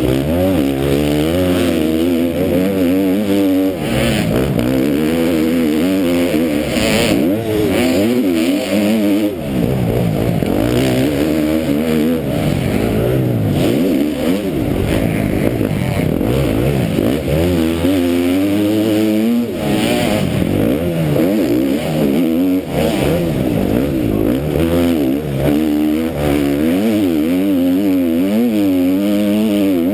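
KTM MX2 motocross bike's single-cylinder engine under race throttle, heard from the rider's helmet camera: the engine note climbs and falls back again and again as the rider opens and shuts the throttle through the gears, with brief drops in level several times.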